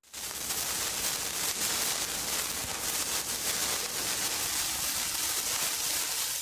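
A steady, even hiss like static or light rain, switching on abruptly out of silence and holding unchanged.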